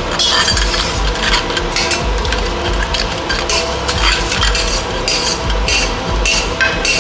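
A spoon stirring crab curry in a cooking pot, with scrapes and clinks against the pan coming at irregular intervals over a low steady hum.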